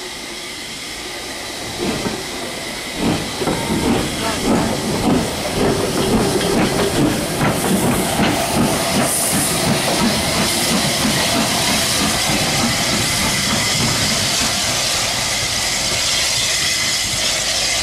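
Southern Railway S15 class No.847 steam locomotive pulling away, with exhaust beats about two a second over a steady steam hiss. The beats start about two seconds in and after about ten seconds merge into a continuous hiss as it draws off.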